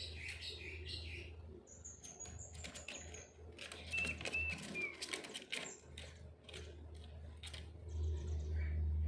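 King quail in an aviary: scattered clicks and scratching, a thin high whistle about two seconds in, and a few short chirps around four seconds. A steady low hum runs underneath and gets louder near the end.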